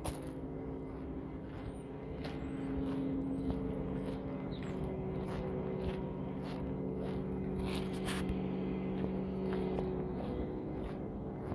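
A truck engine running steadily. It grows louder about two seconds in and eases near the end, with light clicks and knocks over it.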